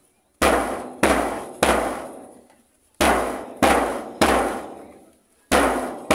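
Marching bass drum beaten for a march-past: loud single strikes, each fading away, in groups of three with a short rest between groups.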